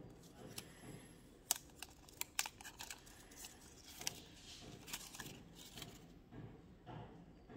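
Protective wrap being peeled and torn off a small power adapter: a quick run of crackles and sharp clicks, densest in the middle, with light handling noise around them.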